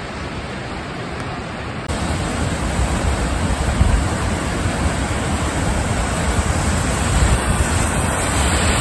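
Waterfall rushing steadily, a heavy flow of water pouring over a rock ledge; it gets louder about two seconds in.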